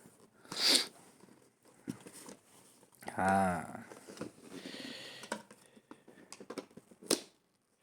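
Tough mouse packaging being torn open, with irregular crinkling and ripping noises and a sharp snap near the end.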